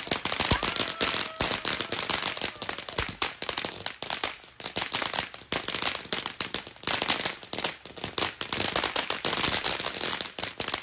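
Consumer firework going off in a dense, continuous run of rapid crackling pops, many a second.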